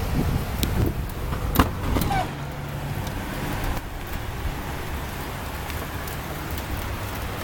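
Steady street traffic noise with a low hum, and two sharp clicks about one and a half to two seconds in.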